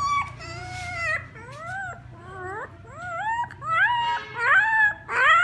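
Puppies whimpering and crying, a string of short high-pitched cries that each rise and fall, coming faster and louder toward the end.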